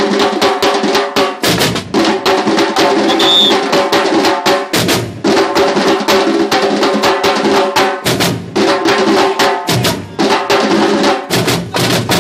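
Samba school bateria drumming: repiniques and snare drums play a fast, dense samba rhythm, with deeper drum beats coming and going underneath.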